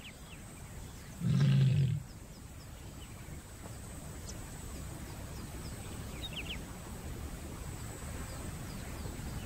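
Lioness in heat calling once, a low call of under a second about a second and a half in, advertising to males that she is ready to mate. After it comes a steady low outdoor rumble.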